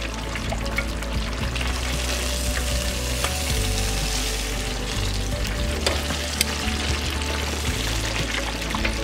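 Cornmeal-coated croaker fish deep-frying in hot oil in an electric deep fryer, a steady dense sizzle and bubbling. A few sharp clicks come about six seconds in, as the wire fryer basket is raised and lowered.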